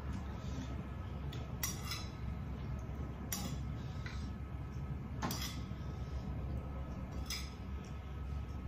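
A metal spoon clinking and scraping against a plate four times, about every two seconds, each with a short bright ring, over a steady low background hum.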